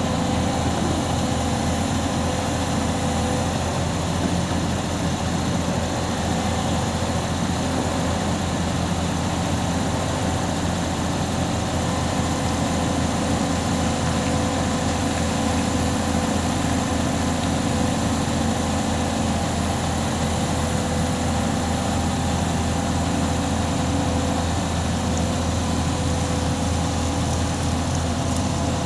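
Heavy diesel engine running steadily at a constant speed, with no revving or changes in load.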